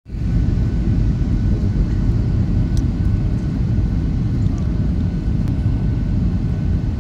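Steady cabin noise inside a Boeing 737-800 on landing approach with flaps extended: a deep, even rumble with a faint high steady tone above it.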